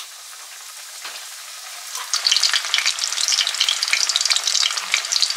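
Panko-breaded horse mackerel deep-frying in about 2 cm of hot oil in a frying pan: a soft hiss that turns into loud, dense crackling and sizzling about two seconds in.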